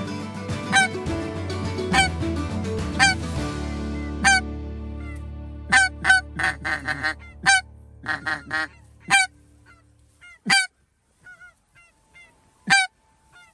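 Hand-held goose call blown to imitate snow geese: a series of short, sharp honks, some single and some in quick runs, spaced further apart toward the end. Background music runs under the first few honks and fades out.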